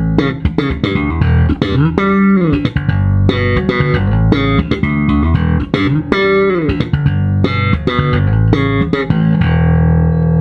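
Provision electric bass played in a run of plucked notes with slides and bends, settling near the end into one long ringing note.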